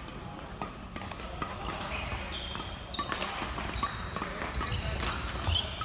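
Badminton hall sounds: shuttlecocks struck on several courts as sharp clicks, and sneakers squeaking on the wooden court floor, with one loud squeak near the end.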